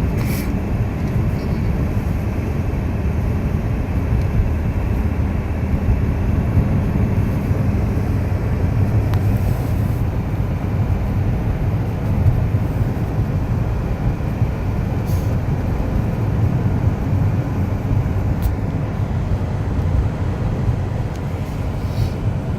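Steady low rumble of a car's road and engine noise heard from inside the cabin while driving, with a few faint ticks.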